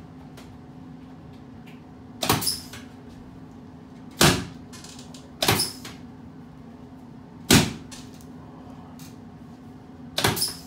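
Sharp knocks and clunks of a chiropractic adjusting table under hand thrusts to a patient's back, spaced a second or two apart, with a quick run of them near the end, over a steady low hum.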